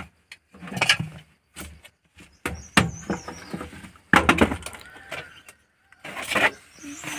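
Plastic push-in retaining clips of a Maruti 800's door trim panel snapping out of the door one after another as the panel is pried and pulled off: a series of about half a dozen sharp cracks and rattles with short gaps between them.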